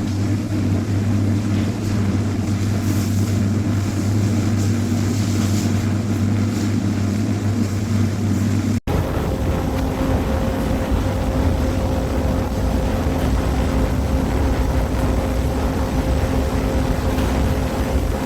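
Industrial machinery running with a steady low hum. About halfway through it cuts off abruptly for an instant and resumes as a noisier machine sound with a faint steady whine.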